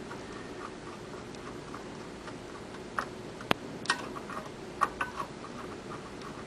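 BW-100 button wrapping machine running with a steady hum and a light regular ticking, about three ticks a second. In the middle comes a quick run of sharp clicks as a hand handles the workpiece at the machine.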